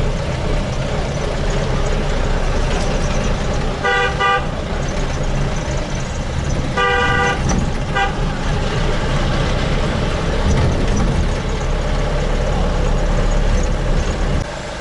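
Road traffic heard from inside a moving taxi: steady engine and road rumble, with vehicle horns honking. There is a short honk about four seconds in, a longer one around seven seconds and a quick toot just after.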